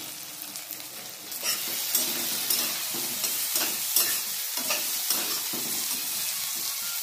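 Spatula stirring and scraping diced vegetables frying in a kadai, with a steady sizzle. The stirring strokes start about a second in and come about twice a second.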